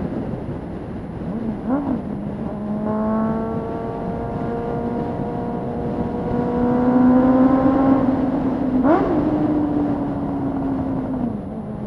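Honda CB400 inline-four motorcycle with Ixil aftermarket silencers running under way through a tunnel, its note climbing slowly. About nine seconds in, a quick throttle blip on a downshift makes the note jump, and near the end the note drops away.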